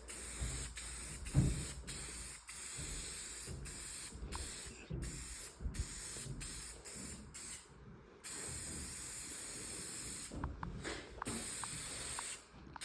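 Aerosol spray can of clear coat hissing in a string of short bursts, the longest about two seconds, as the nozzle is pressed and released. A low thump comes about a second and a half in.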